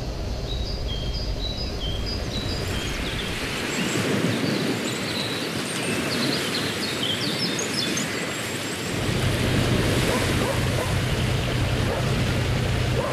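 Outdoor ambience with birds chirping in short repeated notes. From about nine seconds in, a river tour boat's engine drones steadily and grows louder as the boat passes, with water washing.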